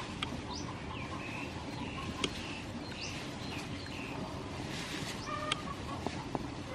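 Chickens clucking in a run of short, high calls, with a few sharp clicks.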